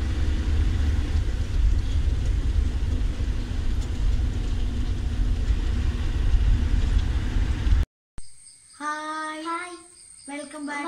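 Steady low rumble of a bus's engine and tyres heard from inside the cabin at highway speed. It cuts off abruptly about eight seconds in, and a child's voice follows.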